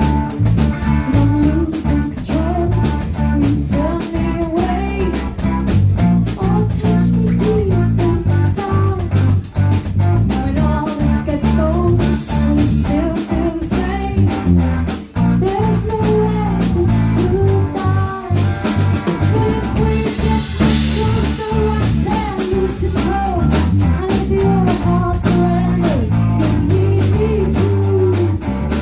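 Live band playing rock music, with electric guitar carrying a bending melodic line over bass and drum kit.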